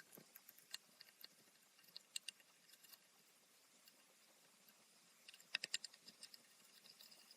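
Near silence broken by faint, sharp clicks and ticks: a few about two seconds in, and a quick run of louder clicks a little past five seconds.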